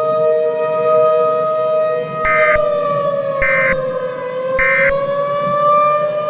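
Civil defense siren sounding a tornado warning on a steady pitch that sags slightly in the middle and comes back up, with three short higher beeps about a second apart laid over it.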